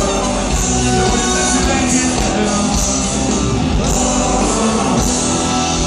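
Live rock band playing at full volume with a singer, heard from within the concert crowd.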